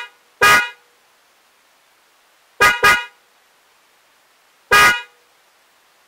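DENSO J-Horn Hyper car horn giving short toots: one cut off just after the start, one about half a second in, a quick double toot at about two and a half seconds, and one more near five seconds.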